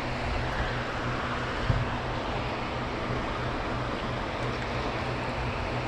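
Steady rush of flowing dam tailwater, with a low, even hum underneath and one light knock a little under two seconds in.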